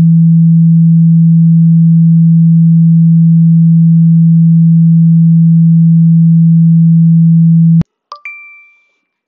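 iPhone speaker playing the Water Eject shortcut's loud, steady low tone of about 165 Hz, which vibrates water out of the speaker grille. It cuts off suddenly near the end, and a short ringing chime follows as the ejection finishes.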